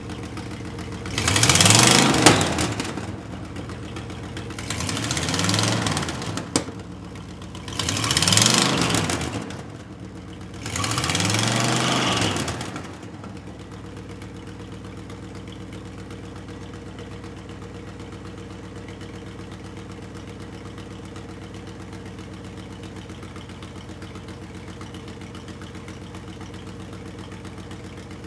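A vehicle engine idling and revved four times in quick blips, each rising and falling back, over the first half; after the last blip it settles into a steady idle.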